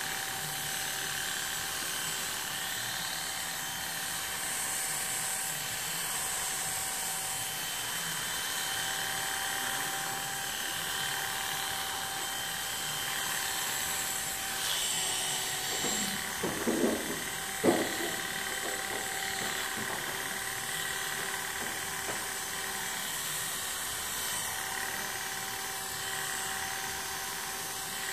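Corded electric hair clipper running steadily with an even motor hum, used clipper-over-comb to cut and taper hair. A few brief knocks and one sharp click come about two-thirds of the way through.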